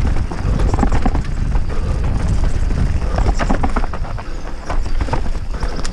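Mountain bike (Orbea Rallon R5 29er) ridden over rough singletrack: a constant clatter of rapid, irregular knocks and rattles from tyres, chain and frame over rocks and roots, over a steady low rumble of wind on the action-camera microphone.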